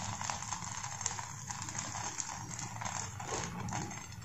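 Semolina batter sizzling steadily on a hot non-stick tawa, with faint scattered crackles.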